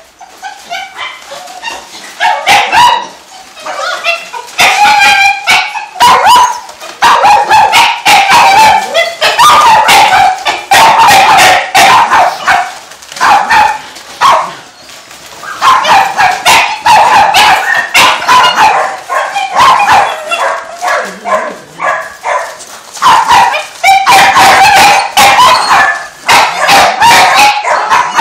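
Several dogs barking and yipping at once, a loud, almost unbroken run of overlapping high barks. It builds up about two seconds in, with a couple of brief lulls.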